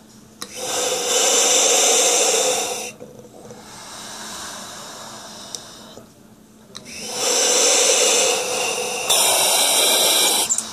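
Two long hissing inhalations of gas and air (Entonox) through a demand-valve mouthpiece, each lasting two to three seconds, with a quieter pause between them; the hiss turns higher and harsher near the end of the second breath.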